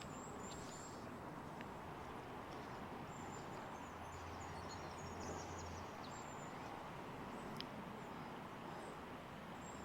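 Steady rush of river water flowing, with faint, high bird chirps over it.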